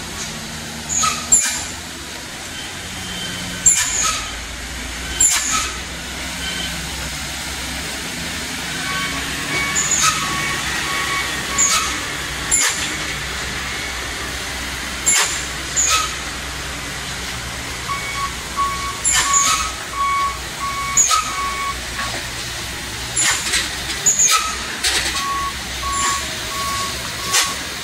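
Heavy diesel trucks running at low speed through a tight hairpin, with many short, sharp air-brake hisses. A truck's reversing beeper sounds in three stretches, about a third of the way in, past halfway, and near the end.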